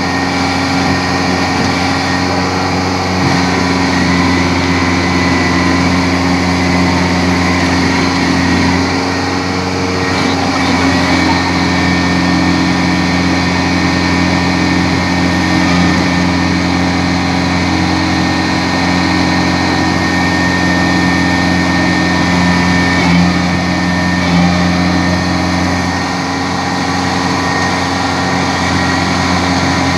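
Kubota DC-70 combine harvester's diesel engine running steadily at a constant speed, loud and even throughout with a slight dip near the end.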